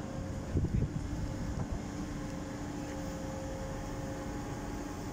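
Steady low machinery hum with a few faint steady tones in it, and wind buffeting the microphone briefly about half a second in.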